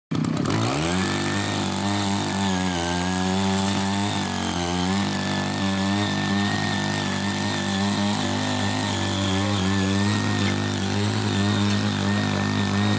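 Small petrol engine of a Ching Yee mini rotary tiller revving up over the first second, then running at high speed as its tines churn through grass and soil. Its pitch sags briefly twice, around three and four and a half seconds in, as the blades take load.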